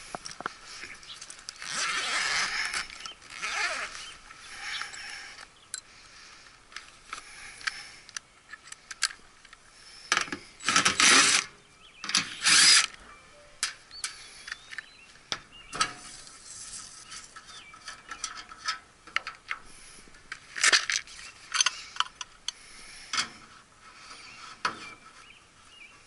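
Handling noise from hand tools and a tool bag at a metal air-conditioning cabinet: irregular clicks, rattles and scrapes, with a few short loud rasping bursts, the longest about ten seconds in.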